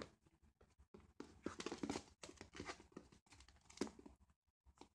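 Faint, irregular scuffling and crinkling of Italian Greyhound puppies playing and moving about.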